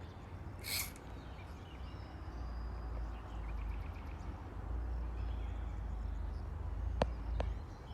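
Wind rumbling on the microphone outdoors, with faint birdsong in the background and two sharp clicks near the end.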